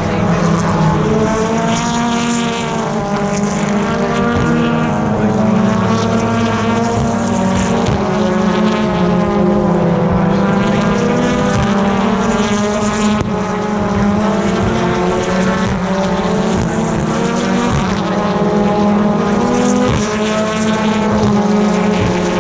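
A field of BTCC touring cars racing past. Several engines overlap, their pitch repeatedly falling and then rising again as they brake and accelerate through the corner.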